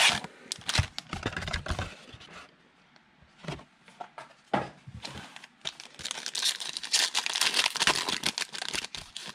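Foil wrapper of a 2020 Panini Absolute football card pack being torn open and crinkled. The crinkling comes in two spells, at the start and over the last three seconds, with light clicks of handling in between.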